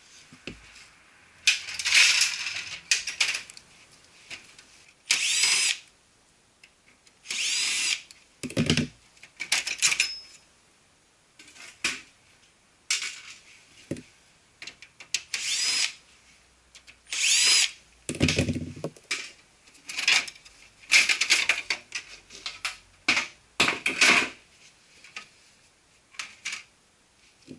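Cordless drill-driver running in repeated short bursts of about half a second to a second, each with the motor's pitch rising and falling, as it works the screws of a copier's cover panels. Twice a burst comes with a heavier low rumble.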